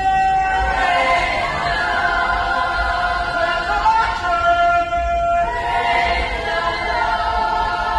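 A group of voices singing a Jamaican Revival chorus together, holding long notes that change in steps.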